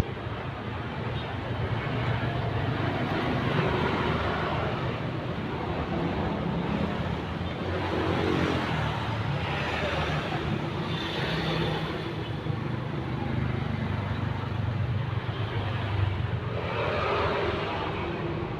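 A motor vehicle engine running steadily, with a rough noise that swells and fades over it.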